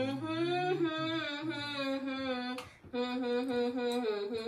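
A person humming the chorus of a song without words: held, sliding notes, then after a short break near three seconds a run of short, evenly repeated notes. A second, lower hum sounds under it for about the first two seconds.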